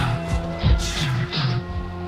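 Music generated by OpenAI's Jukebox neural network, played back from a WAV file: drum hits roughly every three quarters of a second over a bass line and held chords.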